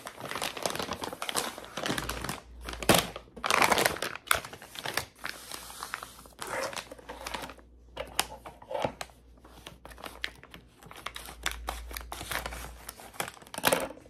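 Clear plastic zip bags and wrapped food packets crinkling and rustling as they are handled and moved about, in irregular bursts.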